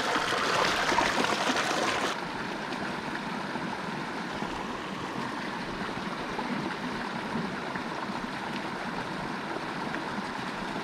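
Small stream running over rocks: a steady rush of water, louder for about the first two seconds, then dropping suddenly to a softer, even flow.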